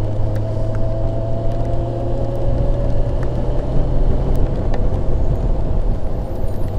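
Kawasaki ZX-6R's 600cc inline-four engine running at a steady cruise, its pitch rising slightly over the first few seconds and then holding, under a steady rush of wind and road noise.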